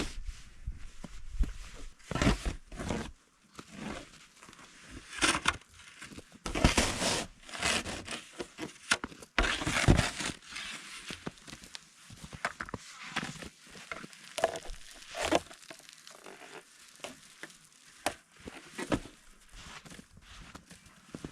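Snow crunching underfoot in uneven bursts, loudest about a third of the way in.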